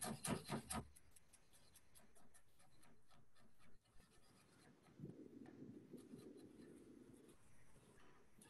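Chef's knife chopping cilantro on a plastic cutting board: a quick run of faint, light taps.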